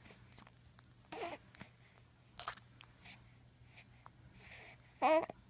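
Baby babbling in three short bursts, about a second in, around two and a half seconds, and loudest just before the end, with small wet mouth clicks in between as it sucks on its fingers.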